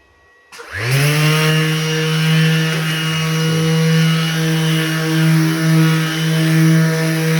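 Cordless Makita random orbital sander switched on with a vacuum hose on its dust port. It spins up quickly about half a second in, runs at a steady high speed with a buzzing hum, and begins to wind down at the very end.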